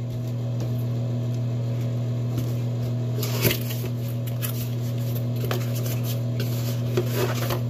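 A small fan's cardboard box being opened by hand: scattered rustles and taps as the flap is pulled and the cardboard insert slides out, the biggest about halfway through. Under it all runs a steady low hum.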